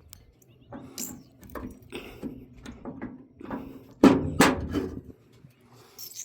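Metal clanks and rattles of an access door on a Hitachi 890 excavator being opened and handled, a string of knocks with the loudest clanks about four seconds in.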